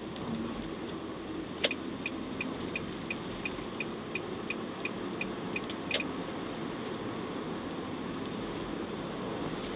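Steady road and engine noise inside a moving car's cabin, with a turn-signal indicator ticking about three times a second for roughly four seconds, between two sharper clicks about two seconds in and six seconds in.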